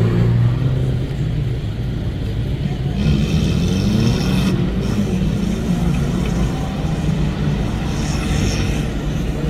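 An off-road car's engine running under load, its pitch rising and falling as it is revved.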